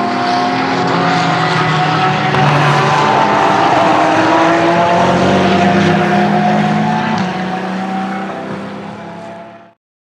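Ferrari 488 GT3 EVO twin-turbo V8 race car engine running hard at steady high revs, loud, then fading away over the last couple of seconds before cutting off abruptly near the end.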